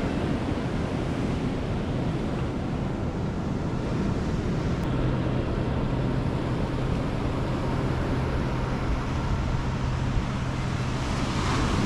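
Ocean surf washing on the shore with wind buffeting the microphone, a steady rushing noise. A faint low, steady hum runs under it from about four seconds in until near the end.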